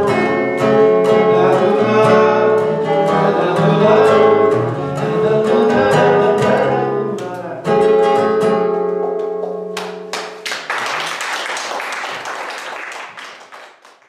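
Acoustic guitar playing the close of a song, ending on a final chord that rings out for a few seconds. Then applause takes over and fades away.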